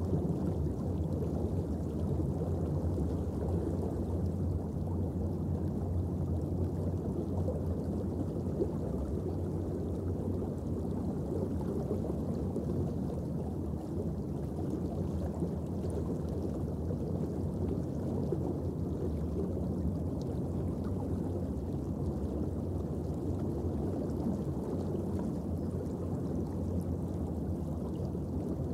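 Steady underwater ambient noise, a low rumble and hiss with a faint low hum, with no bubbles or other distinct events.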